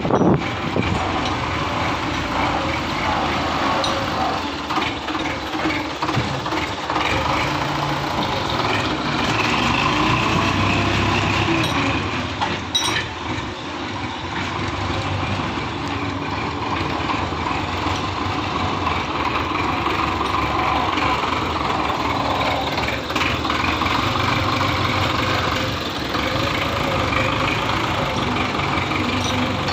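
Belarus tractor's diesel engine running steadily as the tractor moves, its level dipping briefly about halfway through.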